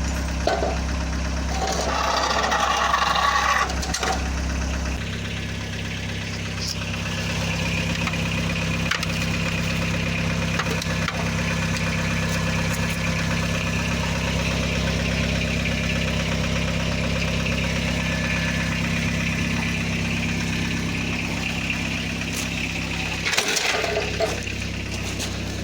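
Motorhome engine idling steadily on its old, leaking exhaust, with brief clatters about two seconds in and again near the end.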